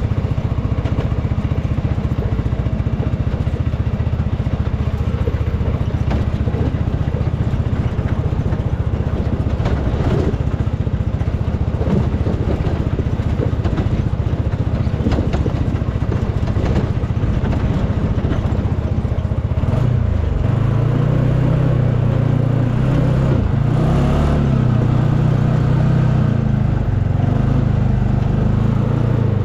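UTV engine running steadily under way, with a few knocks and rattles partway through. About two-thirds of the way in, the engine note grows stronger and rises, wavering up and down as the throttle changes.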